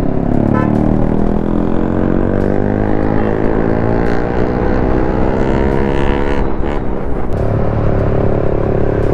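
Motorcycle engine accelerating, its pitch climbing steadily for about six seconds, then dropping suddenly and holding steady at a lower pitch.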